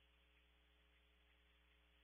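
Near silence: only a faint steady hum and hiss.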